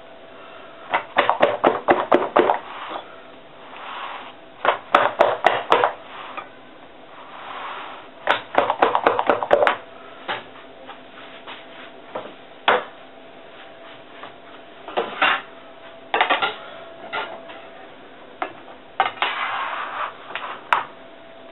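A baking sheet holding spread sponge batter clattering against the countertop in three quick runs of rapid taps, then a handful of single knocks, the usual way of levelling the batter and knocking out air bubbles before baking.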